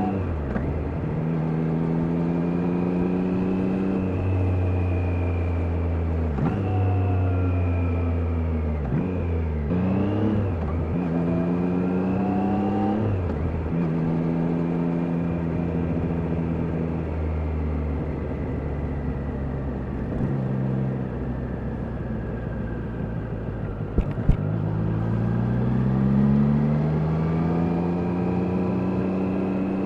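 Triumph Daytona 660's inline three-cylinder engine on the move. Its pitch climbs and drops sharply through a run of gear changes in the first half, then holds steady while cruising. A couple of sharp clicks come past the middle, and the engine pulls up through the revs again near the end.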